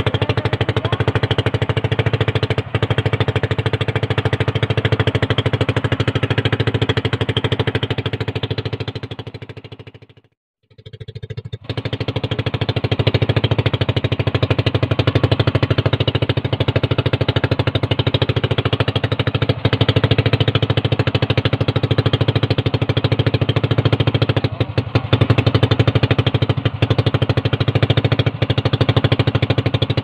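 Small boat engine running steadily with a rapid, even pulse. It fades out about ten seconds in and comes back a second or so later.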